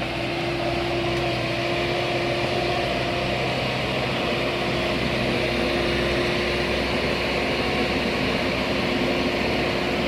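JCB backhoe loader's diesel engine running steadily, with an even hum and a constant whine over it.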